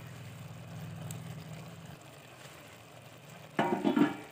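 A steady low machine hum that stops about two seconds in, then a short, loud clatter of metal cookware near the end, as a pot or its lid is handled.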